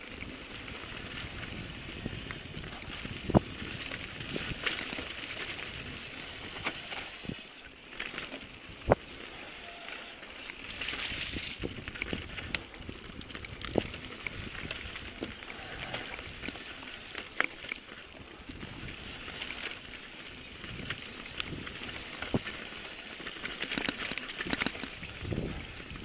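Mountain bike riding a rough dirt trail: a steady rumble and crackle of the tyres on dirt and stones, with frequent sharp knocks and rattles from the bike over bumps, the loudest about three and nine seconds in.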